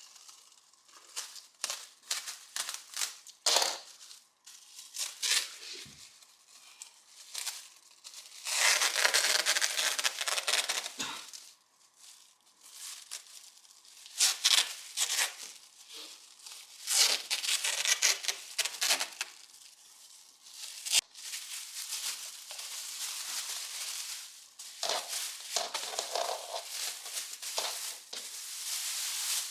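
Close handling noises: rustling, crinkling and scraping in a string of short strokes, with two longer stretches of brushing or scrubbing.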